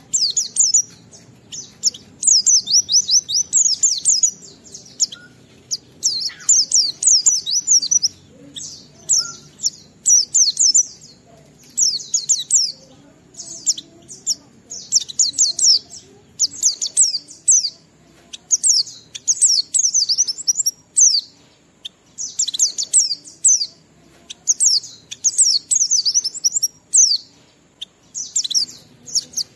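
A white-eye (pleci) in full song: runs of high, rapid sweeping chirps in short phrases, one after another with brief pauses between them.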